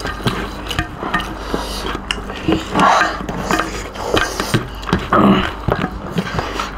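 Two people eating rice and curry by hand: wet chewing and lip smacking, with fingers scraping and squishing rice on steel platters, many small clicks and smacks throughout.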